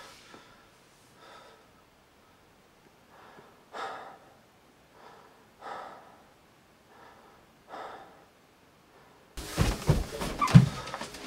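A person breathing heavily in short gasps, about six breaths a few seconds apart. Near the end a sudden loud stretch of heavy thuds follows: footsteps coming down a staircase.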